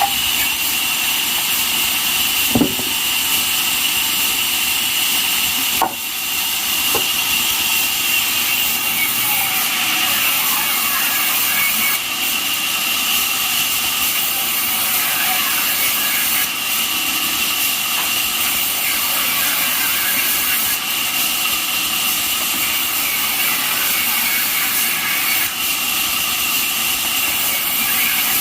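Band sawmill running, with a steady high whine over a loud rushing noise. A couple of sharp knocks come about two and a half and six seconds in.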